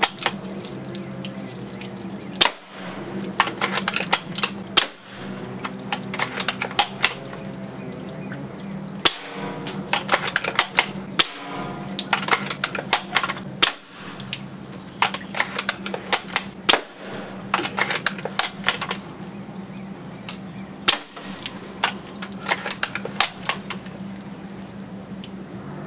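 Maruzen L96 spring-powered airsoft sniper rifle being cocked and fired: clusters of sharp clicks and snaps over a steady low hum, in several short clips with abrupt breaks between them.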